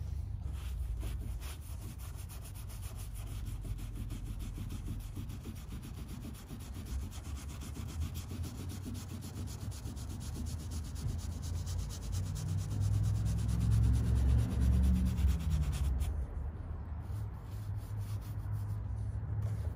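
Soft-bristled detail brush scrubbing a soapy fabric hood insulation pad in quick, steady strokes. A low rumble swells around the middle, and the scrubbing turns intermittent in the last few seconds.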